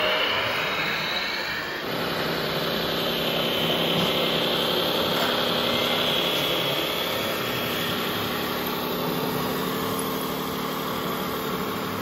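Steady diesel-style engine drone from a remote-controlled scale Mercedes-Benz Arocs tractor truck pulling a loaded tipper trailer, with a faint high whistle over it. It is preceded by a hissing whine that changes abruptly to the engine sound about two seconds in.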